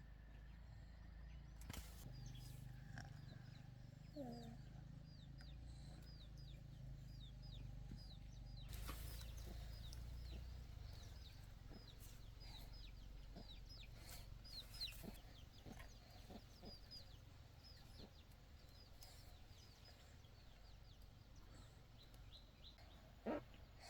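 Faint chickens: chicks peeping over and over in short, high, falling peeps, with a lower call about four seconds in.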